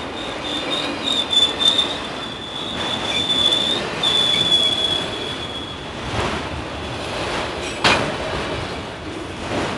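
Freight train of autorack cars rolling past close by: a steady, high-pitched wheel squeal over the running noise of the wheels for the first half or so, then two sharp metallic clanks, one about six seconds in and a louder one about two seconds later.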